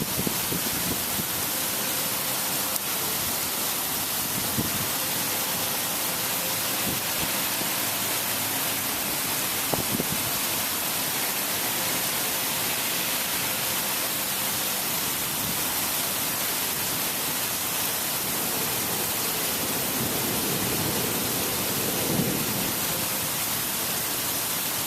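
Heavy thunderstorm rain falling steadily, a dense even hiss with a few faint knocks. A low rumble of distant thunder comes in near the end.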